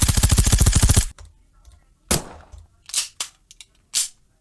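Gunfire sound effect played from a smartphone sound app: a rapid, even burst of machine-gun fire lasting about a second, then four single shots spaced out over the next few seconds.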